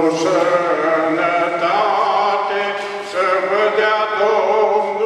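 A small group of voices singing a song together with long held notes, a man's voice on a microphone leading.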